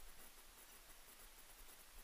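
Near silence: a faint steady hiss with a faint low rumble underneath.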